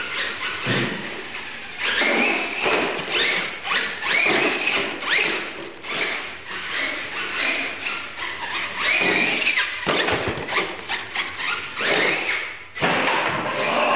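Radio-controlled monster truck driven hard on a concrete floor. Its motor whine rises and falls again and again as the throttle is worked, with tyre squeal and short knocks as it hits the ramps and lands.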